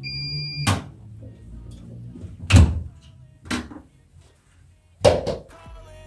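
A Profilo front-loading washing machine's electronic beep, one steady tone lasting under a second, followed by four thuds and knocks as its door is opened and handled, the loudest about two and a half seconds in.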